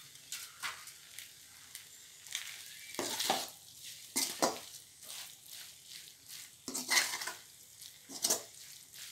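A metal spoon stirring and scraping a thick goat-intestine fry around a metal kadai in irregular strokes, with light sizzling from the hot pan.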